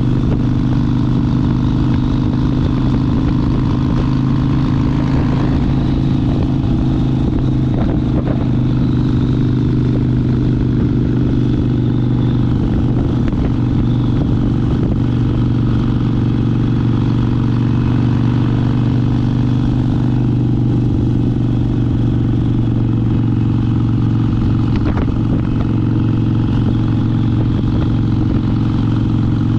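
Harley-Davidson Sportster 72's 1200 cc air-cooled V-twin running at an even, unchanging engine speed, a steady low engine note with no revving.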